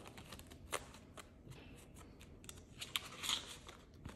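Polymer banknotes and a clear plastic cash envelope being handled: a scatter of light clicks and crinkles as notes are counted and slid into the envelope, with a brief rustle about three seconds in.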